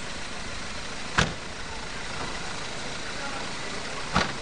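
Steady street traffic noise from cars on a town street, broken by two sharp thumps about three seconds apart.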